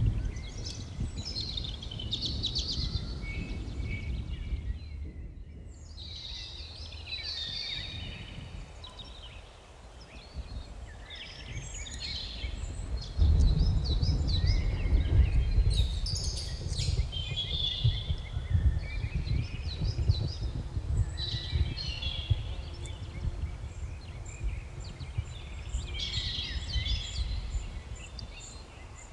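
Birds chirping and singing in quick repeated calls, over a steady low rumble that grows louder about halfway through.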